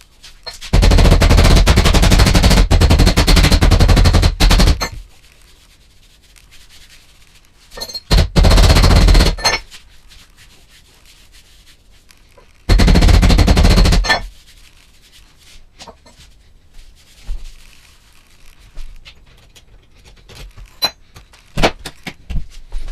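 Power sander with 80-grit paper running against a car door's steel skin in three bursts, a long one of about four seconds and two shorter ones. It is sanding the panel to show up the remaining low spots in the dent repair.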